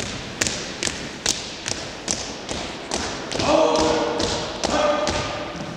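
Marching footsteps of a color guard striking a hard floor in unison, a steady beat of about two and a half steps a second, echoing in a large hall. Partway through, a voice calls out two long, drawn-out drill commands.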